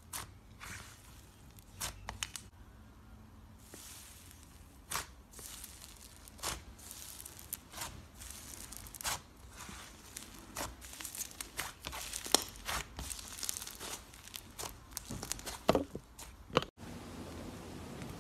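Thick, fluffy slime being pressed and stretched by hand, giving irregular sharp crackles and small pops as it tears apart. The crackling stops suddenly near the end, leaving a faint steady hiss.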